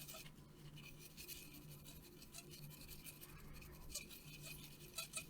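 Faint scratchy rubbing of a circuit board being wiped and scrubbed clean, in short spells, with a stronger spell near the end. A low steady hum runs underneath.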